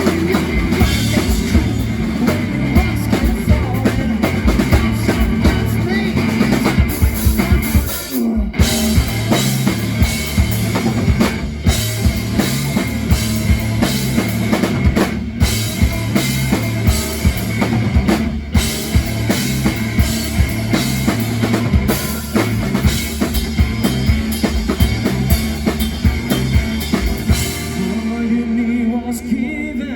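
Live rock band playing, a full drum kit driving a steady beat under bass and other instruments. About two seconds before the end the drums drop out and a lower, held part carries on.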